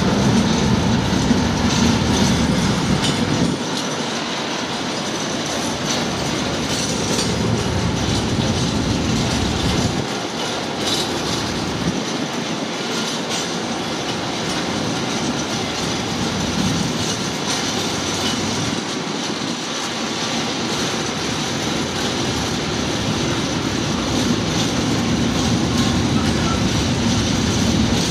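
A long rake of empty Network Rail engineering wagons rolling past on the rails. It is a steady, continuous noise of wagon wheels on the track, rising and falling a little in level as the wagons go by.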